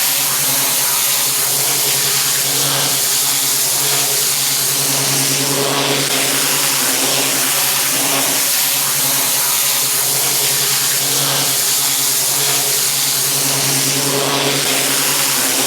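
Pressure washer running steadily: the engine's even drone under the hiss of the high-pressure water spray cleaning block paving.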